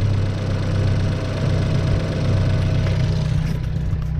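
Turbocharged car engine idling steadily, heard from inside the open engine bay beside its exposed cone air filter. A few sharp clicks near the end.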